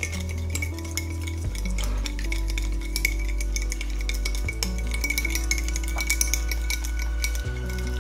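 Fork stirring a tahini dressing in a bowl, with many quick clinks and scrapes of the fork against the bowl. Background music with low held notes that change about every three seconds plays underneath.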